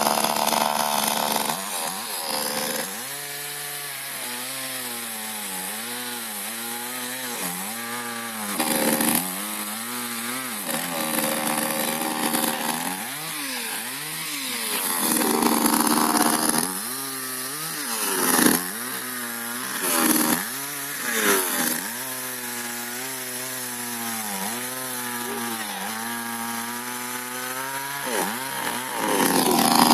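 Chainsaw running and cutting wood, its engine pitch dipping and recovering again and again, about once a second, as the chain bites into the wood and eases off. It gives a few brief, louder high revs partway through.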